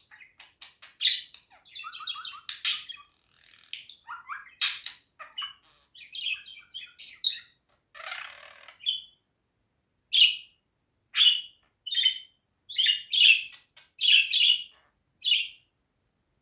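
Budgerigar chirping and warbling: a busy run of varied chirps and chatter, then from about ten seconds in a string of short, separate chirps roughly a second apart.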